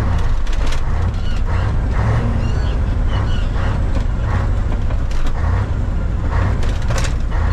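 Mitsubishi Fuso truck's 8DC9 V8 diesel engine running steadily under load, heard from inside the cab while hauling about 30 tons of cement. Frequent short clatters, roughly every half second, run through it.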